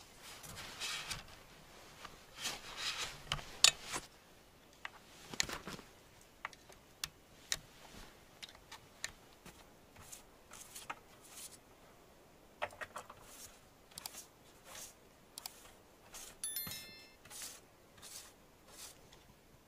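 Gloved hands cleaning and handling a chainsaw that is not running: scattered scrapes, rustles and clicks, the loudest a sharp click about three and a half seconds in, with a brief ringing clink near the end.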